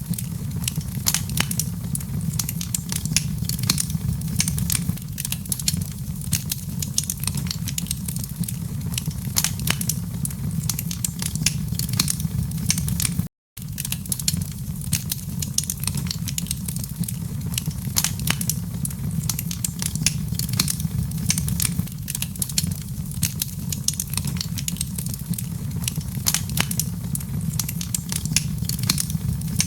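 Wood fire crackling in a fireplace: frequent sharp pops and snaps over a steady low rumble of the flames. The sound cuts out for a split second about halfway through.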